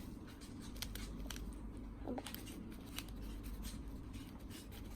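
Faint, scattered small clicks and scrapes of a little spoon scooping powdered candy mix into a toy candy-making kit.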